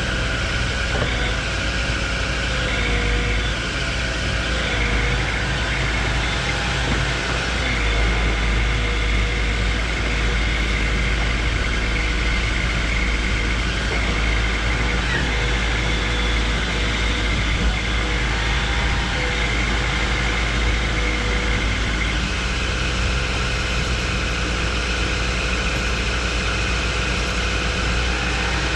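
Diesel excavator engines running steadily under load with a thin steady whine, as one excavator drags another out of deep mud.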